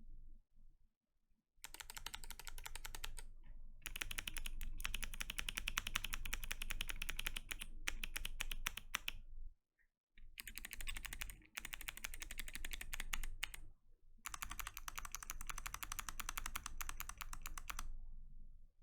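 Fast typing on a KBD67 Lite keyboard with Kailh Box Jade clicky switches and PBT keycaps: a dense stream of sharp key clicks in three long runs. It starts about a second and a half in, breaks off briefly twice, and stops near the end.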